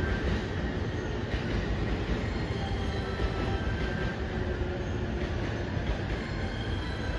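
Steady rumble of a freight train hauled by an electric locomotive approaching a station, with faint high steady tones over it.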